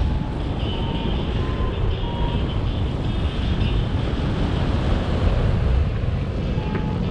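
Airflow rushing over the microphone of a paraglider in flight, with a paragliding variometer giving a few short, high beeps in the first two seconds and again near the end.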